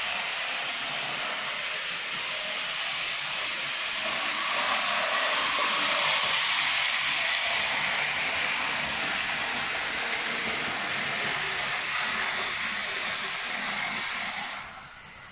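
Märklin Delta BR41 model locomotive running fast over the layout's track: a steady hissing rush of motor and wheels on the rails, a little louder midway, that falls away sharply about a second before the end.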